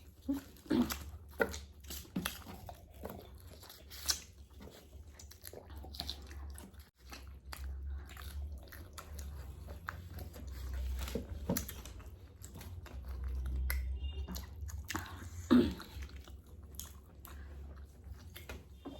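Close-up chewing and crunching of KFC fried chicken: irregular crisp bites and wet mouth sounds.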